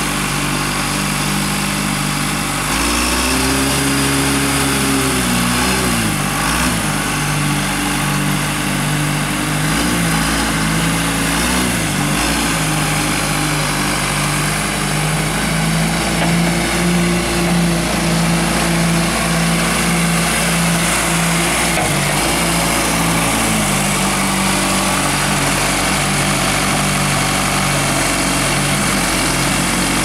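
John Deere 510C backhoe loader's diesel engine running as the machine drives, its pitch rising and dipping several times as the throttle changes, with a steadier, higher stretch about two-thirds of the way through.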